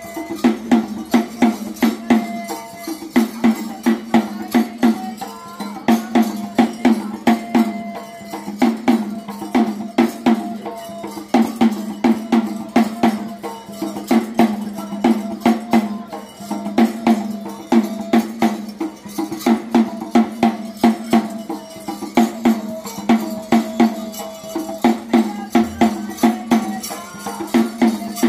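Percussion music: drums and jingling tambourine-like percussion beating a fast, steady rhythm, with a held melody line and a steady low drone above it.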